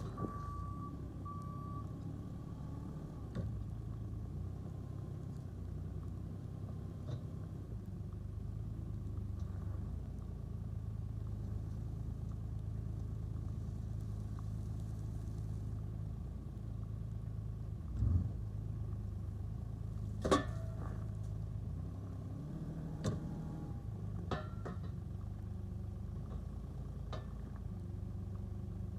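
A farm vehicle's engine running steadily, with a reversing beeper sounding near the start and a few sharp metallic knocks and clanks in the second half.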